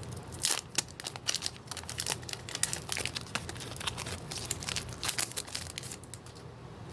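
Foil wrapper of a Pokémon booster pack being torn open and crinkled: a quick run of sharp crackles and rustles that thins out near the end.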